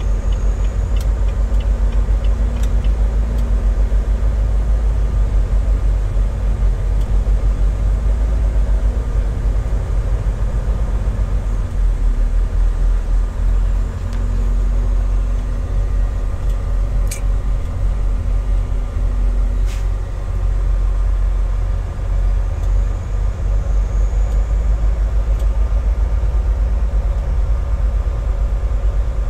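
Semi truck's diesel engine running as the truck rolls slowly, a steady low rumble, with a few brief sharp clicks.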